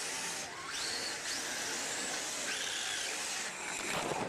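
Radio-controlled drift car's electric motor and drivetrain whining, the pitch rising and falling in several sweeps as the throttle is worked, over a steady high hiss.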